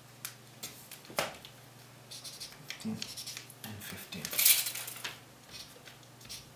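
Light clicks and scrapes of a measuring rule and pen being handled against a paper-covered wall, with a louder scratchy rustle about four and a half seconds in.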